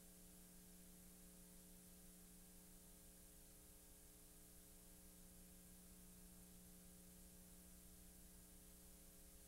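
Near silence: a faint steady hum of several tones over a light hiss, unchanging throughout.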